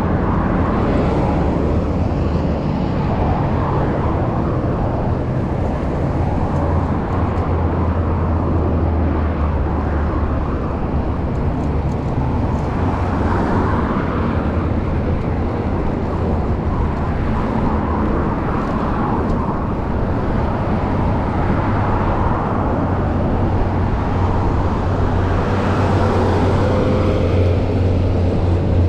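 Steady roadside traffic noise, a continuous rushing, with motor vehicles swelling past and fading several times.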